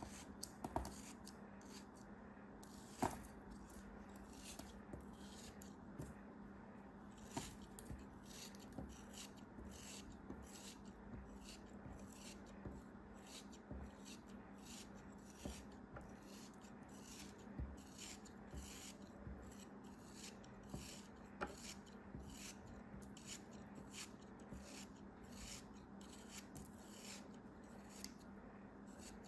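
Quiet, crisp cutting and rubbing strokes from hands unpacking kinetic sand and soap, about two a second, with a few sharper clicks, over a low steady hum.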